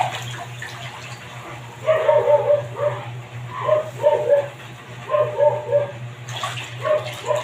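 A dog barking in quick runs of several short barks, starting about two seconds in, over a steady low hum.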